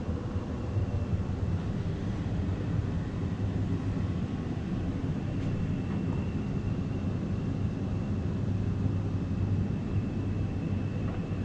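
A steady low rumble. About six seconds in, a faint thin high tone joins it.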